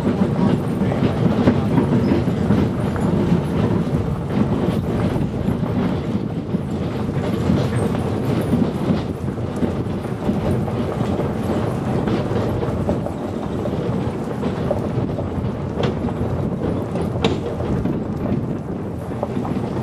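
Wheeled dog-sled training cart rolling fast over a gravel road behind a running dog team: a steady rumble and crunch of wheels on gravel, with a couple of sharp ticks near the end.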